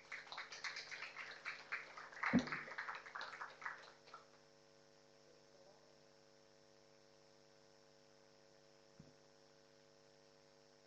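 Audience applauding for about four seconds, then a steady electrical mains hum.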